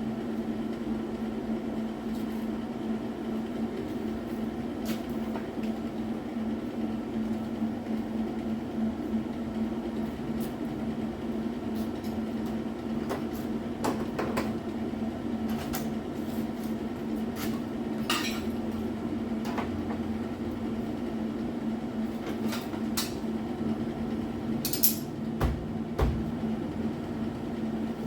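Scattered metallic clinks and taps of hand tools on car body sheet metal, a few louder knocks near the end, over a steady low hum.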